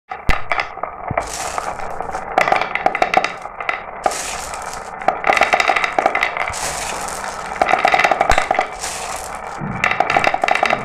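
Glass marbles rattling and clicking down a marble run track. Runs of rapid, ringing clicks come in bunches every two to three seconds, with rolling noise in between.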